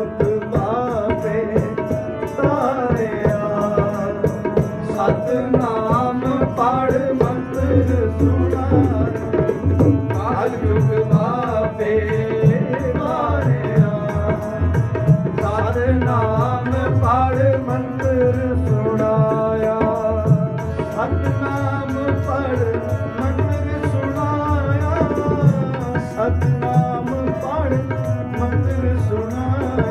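Sikh kirtan: harmoniums and tabla accompanying a sung shabad. The tabla keeps a steady rhythm under a wavering, drawn-out vocal line and the sustained reed tones of the harmonium. The low drum strokes grow fuller about seven seconds in.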